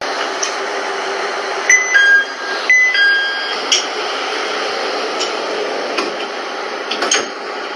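Train door chime: a two-tone electronic chime, a higher note falling to a lower one, sounding twice in quick succession over steady background noise, the signal that the doors are opening or closing. A few light clicks follow.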